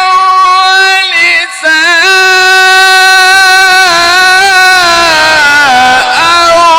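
A male Quran reciter chanting in the melodic mujawwad style, drawing out long ornamented vowels on sustained high notes with a short break about a second and a half in.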